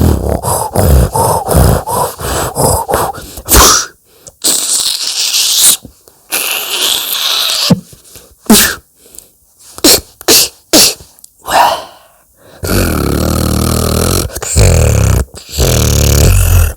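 A beatboxer imitating cartoon sound effects with the mouth: a quick run of clicks and pops, then a breathy hiss, scattered single pops, and two long low buzzing tones near the end.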